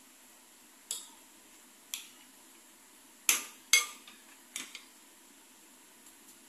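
Metal spoon clinking against a glass bowl while mashing avocado: a handful of sharp clinks at uneven intervals, the loudest two close together about three seconds in.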